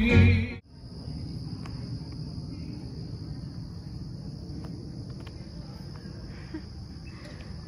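Live music with singing cuts off about half a second in. A steady evening insect chorus follows, one unbroken high-pitched trill, over a low background rumble.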